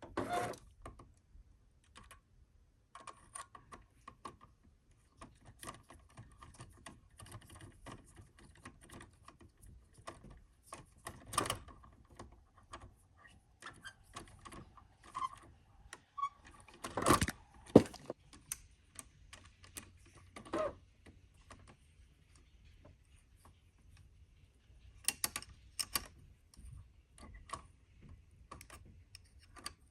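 Small clicks and taps of hand tools and a screw and nut on the metal links and shock mount of an RC crawler as the screw is worked in by hand, with a few louder knocks around the middle.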